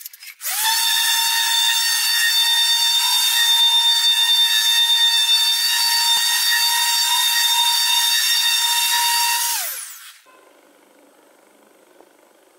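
Electric random orbital sander sanding a wooden tabletop: the motor spins up with a rising whine, runs steadily with a high-pitched whine for about nine seconds, then winds down and stops.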